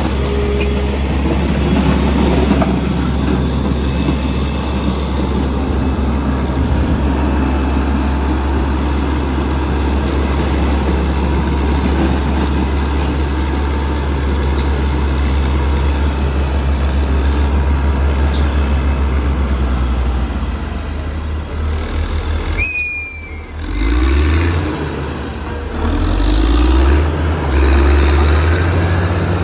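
Caterpillar 120K motor grader's diesel engine running close by with a steady low drone. About three-quarters of the way in there is a short high squeal, and near the end the engine speed rises and falls as the grader moves off.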